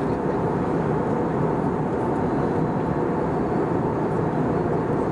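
Steady cabin noise of an Airbus A320-214 on descent: the rush of air over the fuselage and the hum of its CFM56 engines, unchanging throughout.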